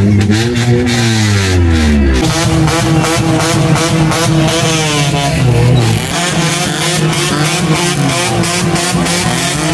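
Car and motorcycle engines revving in dense, slow-moving traffic, heard close by from a car window: several pitches rise and fall over one another, and a deep low tone cuts out about two seconds in.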